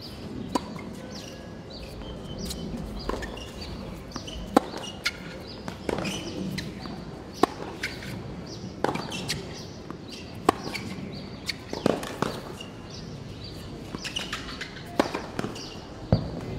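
Tennis rally on a hard court: sharp pops of the ball off racket strings and bouncing on the court, about one every second or so.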